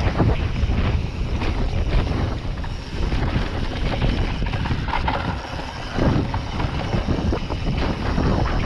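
Wind buffeting the microphone of a mountain bike's on-board camera while riding a dirt trail, with irregular knocks and rattles from the bike over rough ground.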